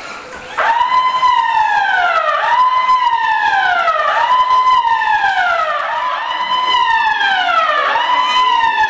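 Electronic alarm siren that starts suddenly about half a second in and cycles over and over, each cycle a quick rise in pitch followed by a long falling glide, about one cycle every second and a half or so.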